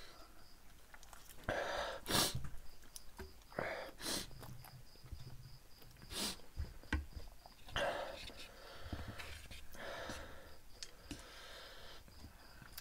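Sniffling and sharp nasal breaths from people eating very spicy noodles, their noses running from the heat, mixed with slurping of noodles; a run of short sniffs and breaths, the sharpest about two, four and six seconds in.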